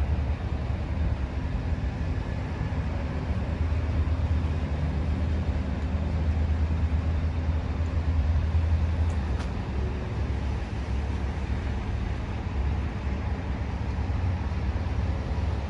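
Diesel engine of a New Flyer XD60 articulated city bus idling with a steady low hum.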